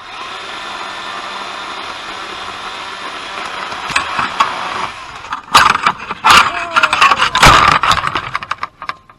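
Battery chainsaw running steadily as it cuts into a limb. From about five and a half seconds in come loud cracking and crashing, as the cut limb breaks and falls. It all stops near the end.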